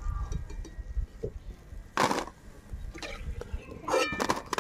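Metal slotted frying spoon clinking against the wok as freshly fried crispy gram-flour strands are scooped out and tipped into a basket. One loud clatter about two seconds in, then several lighter clinks near the end.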